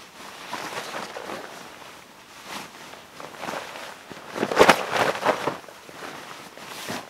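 Rustling of synthetic and camouflage fabric being handled, folded and stuffed into a stuff sack. The rustling is irregular, with its loudest burst about four and a half seconds in.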